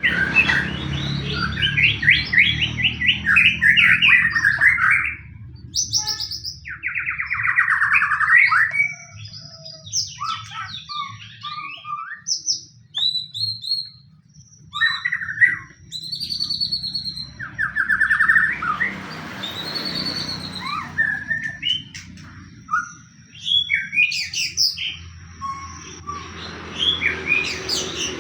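White-rumped shama (murai batu) singing in an aggressive, fighting mood: a loud, varied string of fast trills and sharp whistled phrases broken by short pauses, with a few harsher, rasping passages. Such fighting song is used as a lure to provoke other shamas into singing.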